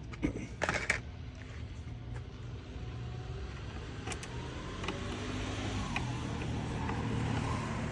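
Motor vehicle running, a steady low hum that slowly grows louder and then eases off near the end. A couple of short clicks come about half a second in.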